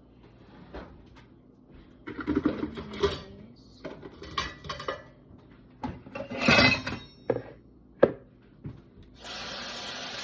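Kitchen utensils and a chopping board being handled and set down: uneven clattering and scraping with a sharp knock about eight seconds in. A tap then starts running water near the end.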